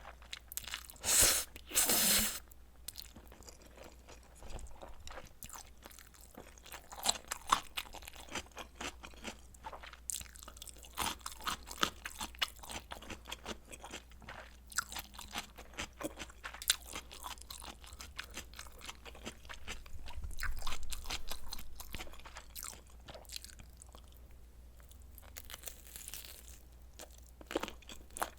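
Close-miked eating sounds from a meal of spicy noodles and kielbasa sausage: steady chewing with crisp, crunchy bites. Two loud bites come about a second in, and a louder run of chewing comes about two-thirds of the way through.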